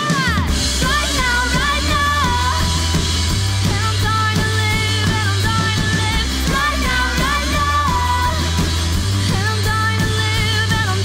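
Rock band playing live: a woman singing lead over electric guitar, bass guitar and drums, the full band coming in loud right at the start.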